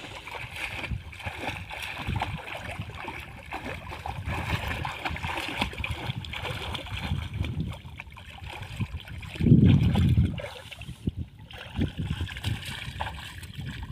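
Shallow muddy water splashing and sloshing as a person crawls, lies and then wades through it, with irregular low knocks and one louder rush of water about two-thirds of the way through.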